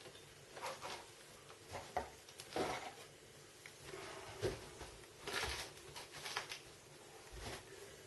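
Faint handling sounds: scattered light knocks and rustles as an Asus P6X58D-E motherboard is lowered into a metal PC case and set against the chassis. The two loudest knocks come about two seconds in and in the middle.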